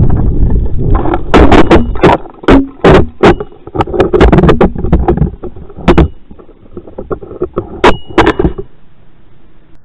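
Microphone of a keychain camera strapped to a tumbling model rocket: rough wind rush with many sharp cracks and knocks, fading away near the end. The rocket is tumbling because its Estes C6-5 motor failed by blowing through.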